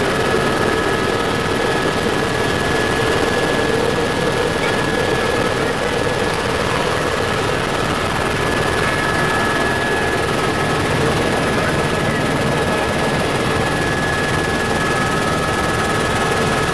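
Cabin noise of a Helibras HB 350 Esquilo single-engine helicopter in flight: turbine and main rotor running steadily, a dense rush with a thin, steady high whine over it.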